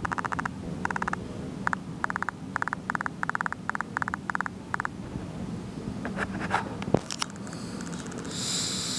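Computer mouse scroll wheel turned in about a dozen short bursts of rapid ratcheting clicks, followed by a few separate clicks about six to seven seconds in, over a faint steady hum.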